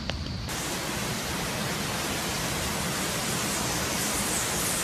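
Hurricane wind and driving rain: a steady, even rushing noise. It sets in abruptly about half a second in.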